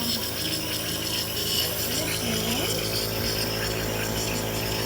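Nebulizer air compressor running steadily during a breathing treatment: a constant motor hum with an even hiss of air and medicine mist.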